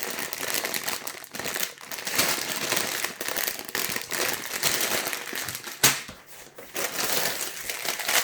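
Plastic Lego parts bags crinkling as they are handled, with a single sharp tap a little before six seconds in.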